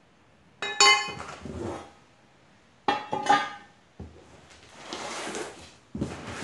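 Metal parts of a mower mulch kit clanking together as they are handled: two ringing clangs about two seconds apart, then a softer rustle and a knock near the end.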